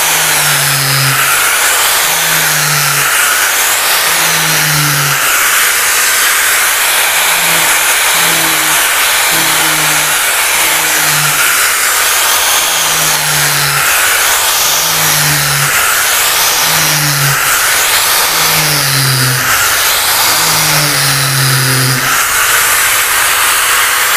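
Ingco AG710382 angle grinder with a 4-inch hook-and-loop sanding disc, running at full speed while sanding a puttied wooden board. It makes a steady high whine and rasp, with a low drone that swells about once a second. The pulsing stops near the end as the pad comes off the wood.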